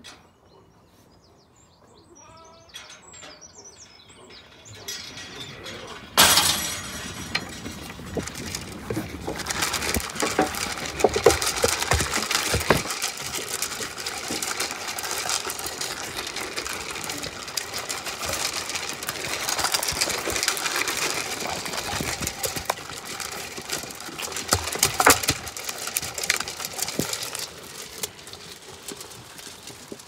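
Zwartbles lambs stampeding to a metal feed trough and eating pellets: a sudden loud onset about six seconds in, then a dense clatter of hooves, knocks against the trough and crunching of pellets that eases near the end. Birdsong is heard over a quiet start.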